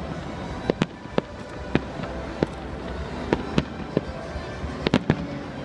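Fireworks display: aerial shells bursting in a string of sharp bangs, about a dozen at uneven intervals, with three in quick succession near the end, over a steady background rumble.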